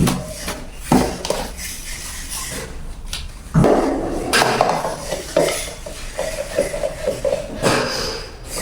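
Hard plastic parts of a rice dispenser knocking and clattering as they are handled. There are a few sharp knocks, then a louder stretch of rattling a little over halfway through.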